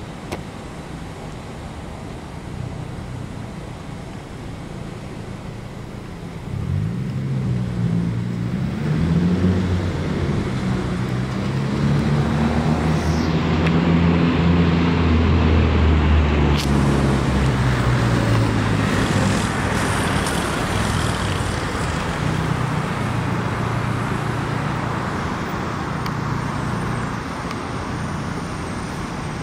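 Road traffic passing close by. A vehicle's engine comes in about a quarter of the way through and is loudest in the middle, then it fades back into a steady traffic hum.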